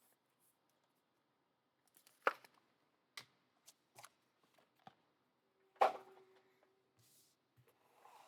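Trading cards being handled: a few sharp snaps and light taps of card against card, the two loudest about two seconds in and near six seconds in.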